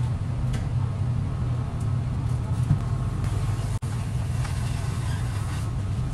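Steady low machine hum of café equipment, with a few faint light taps of the metal scoop and tongs as berry toppings are placed on a cream-topped waffle.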